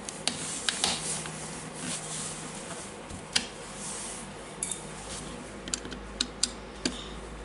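Scattered light clicks and short scrapes of hand tools and small metal and plastic parts being handled while an angle grinder is taken apart, with a cluster of clicks in the second half.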